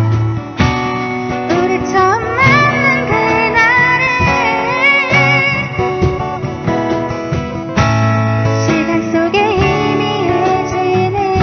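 A song sung with guitar accompaniment, the vocal melody wavering over plucked and strummed guitar and low held bass notes.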